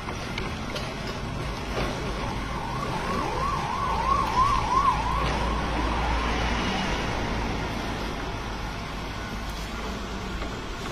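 Groundnut oil mill (rotary chekku) running with a steady low rumble as its pestle grinds peanuts. Through the middle, a siren-like tone warbles up and down about three times a second for a few seconds and is the loudest sound.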